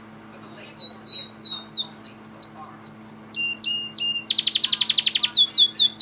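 Timbrado canary singing, starting about a second in: a run of repeated downward-sliding high notes, a few lower flat notes, then a fast rattling trill, and more sliding notes to close.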